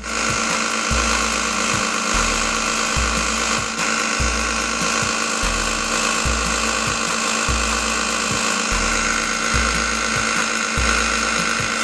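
Bench belt sander running steadily while a small wooden piece is held against its belt for sanding, a constant hiss with a steady hum. Background music with a repeating bass beat plays underneath.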